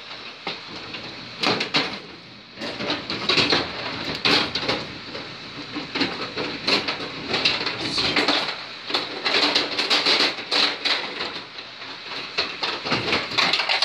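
Carrom dome hockey table in play: rapid, irregular clacking and rattling of the plastic players, control rods and puck.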